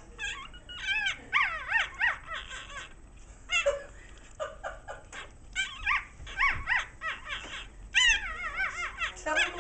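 Newborn whippet puppies squealing and whimpering: short, high cries that rise and fall in pitch, coming in quick runs with brief pauses between.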